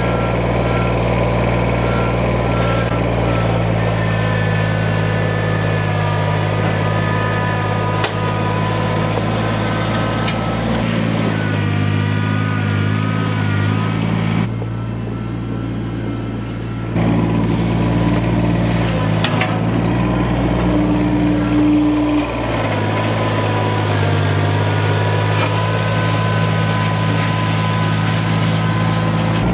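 Kubota BX2370 compact tractor's three-cylinder diesel engine running under working load, its note shifting up and down several times, with a thin steady whine above it.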